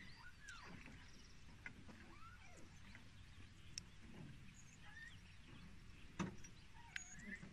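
Near silence: faint open-air ambience with a low rumble, scattered soft bird chirps and one soft knock about six seconds in.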